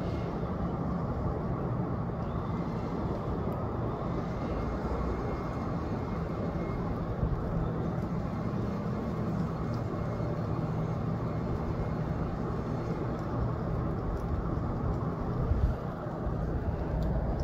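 Steady low outdoor rumble with a faint steady hum in it, briefly swelling louder near the end.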